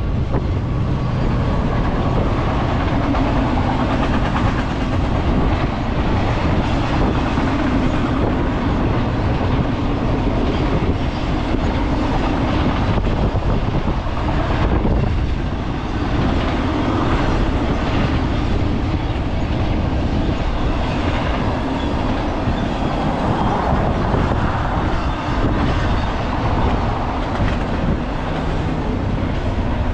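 Double-stack container freight cars rolling steadily past, their steel wheels running on the rails in a continuous, even rumble.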